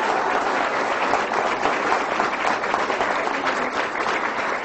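An audience applauding: steady, dense clapping.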